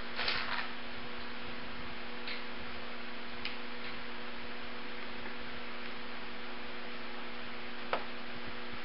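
Steady electrical mains hum with a hiss, with a few faint ticks and one sharper metallic click near the end as a flywheel puller is set against the engine's flywheel hub.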